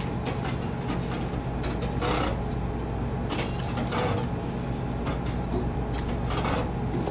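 Steady low hum of commercial kitchen equipment, with irregular short knocks and scrapes of foam cups and utensils being handled as food is portioned into cups.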